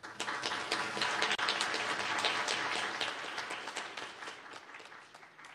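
Audience applauding: a dense patter of many hands clapping that sets in at once, is fullest over the first few seconds and then dies away.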